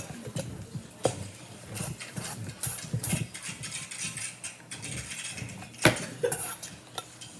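Spoon stirring slime in a bowl, giving irregular scrapes and clicks against the bowl, with one sharp knock about six seconds in.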